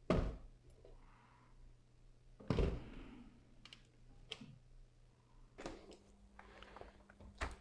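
Clicks and knocks from a desoldered through-hole component being worked loose and pulled off a circuit board by hand. Two sharper knocks come about two and a half seconds apart, then a scatter of light clicks.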